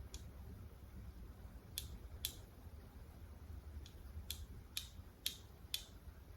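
Light, sharp fingernail taps and clicks on a smartwatch while its timer is set: about eight, irregularly spaced, most of them in the second half, over a faint low room hum.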